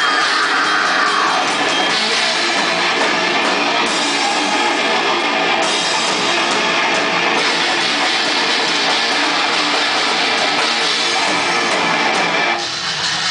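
Goregrind band playing live: loud, distorted bass and guitar over a drum kit, with a brief drop near the end where the sound thins out.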